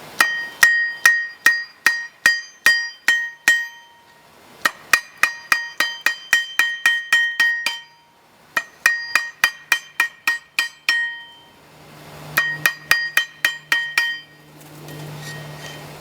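Hand hammer striking a chisel to cut steel rod on a railroad tie-plate anvil. The blows come about three a second in four runs with short pauses between them, and each blow rings with a bright metallic tone. A low hum comes in near the end.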